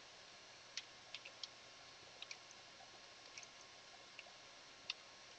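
Faint computer keyboard keystrokes: about ten scattered, irregular clicks over a quiet background, as a short terminal command is typed.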